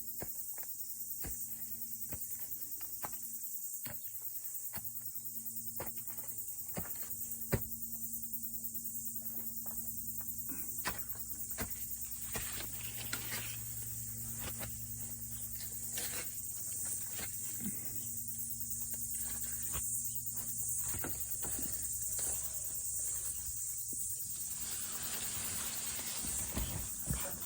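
Cicadas shrilling in a steady high-pitched chorus, with scattered sharp clicks and knocks over it.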